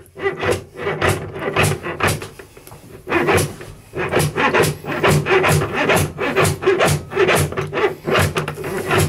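Coiled-spring cable of a handheld drain snake being fed down a blocked sink drain, rasping against the drain in short repeated strokes, two or three a second.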